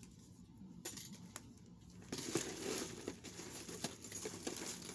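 A few light clicks, then from about two seconds in a plastic bag crinkling with small jewelry pieces clinking as they are handled and packed into it.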